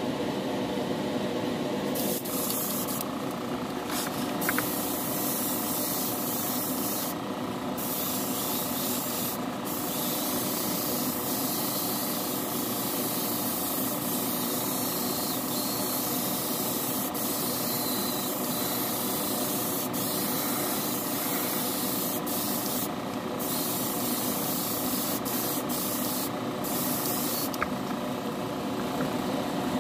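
Clear coat spraying onto a plastic model car body, a steady hiss that stops briefly several times between passes, over a steady machine hum.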